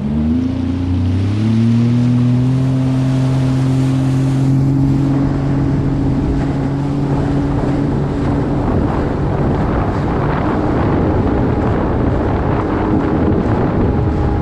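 Sea-Doo Fish Pro personal watercraft engine accelerating hard. Its note rises over the first second or so, then holds at a steady high-speed drone. Later the engine note gives way to rushing water and wind on the microphone.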